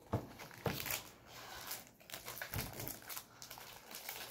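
Foil wrapper of a Pokémon card booster pack crinkling as it is handled, in short, irregular rustles.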